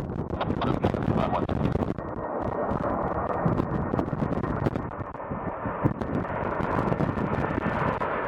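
Strong wind buffeting the microphone in irregular gusts and thumps, over the rumble of a jet airliner's engines.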